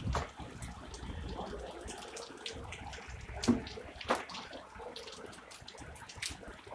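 Rain falling, a steady wash of water noise with many separate drop hits landing at irregular moments, one of them sharper and louder about four seconds in.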